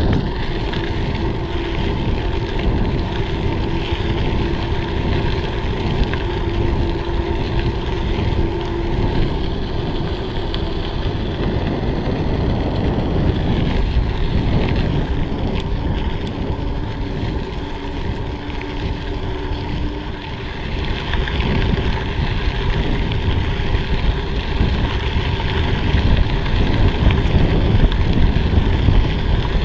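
Wind buffeting the microphone of a camera riding on a moving mountain bike, mixed with tyre rumble on an unpaved rail trail. A faint steady hum runs under it for about the first ten seconds.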